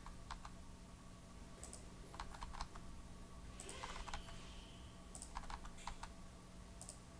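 Faint computer keyboard key presses in short groups of a few taps, with pauses between the groups, from lines of code being re-indented.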